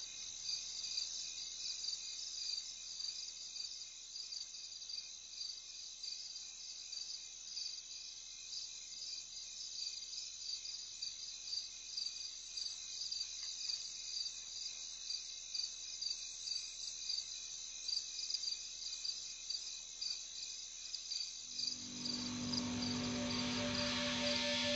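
Crickets chirping in a steady, evenly pulsing high-pitched trill. About 22 seconds in, music fades in underneath with sustained low notes and grows louder.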